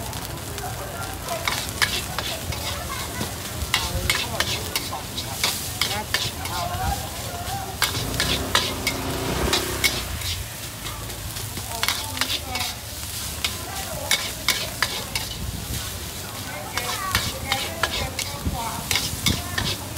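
Fried rice being stir-fried in a wok: two metal spatulas scraping and clinking against the wok in quick irregular clusters over a steady sizzle.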